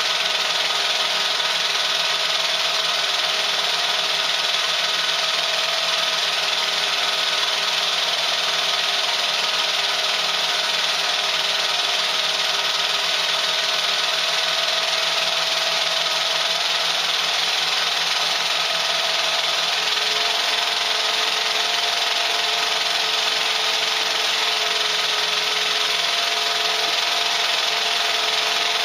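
Pathescope 200B 9.5mm film projector running steadily, its motor and film mechanism making a continuous mechanical whir. The pitch shifts slightly about two-thirds of the way through.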